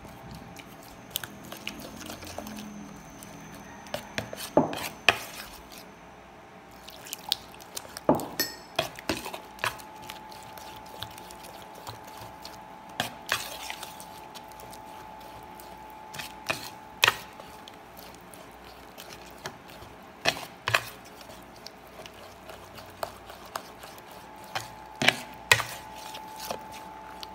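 A metal fork stirring and beating thick egg-and-flour batter in a ceramic bowl: wet sloshing with irregular clinks of metal against the bowl. A faint steady hum runs underneath.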